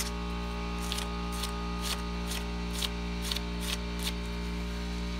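Gloved hand scraping and scooping loose dirt and broken rubble out of a trench in a floor, about two scrapes a second, stopping about four seconds in. A steady low hum runs underneath.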